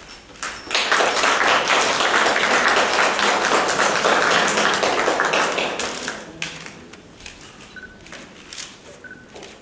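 Audience applauding, a dense patter of many hands that starts about a second in, holds for roughly five seconds and then dies away to a few scattered claps.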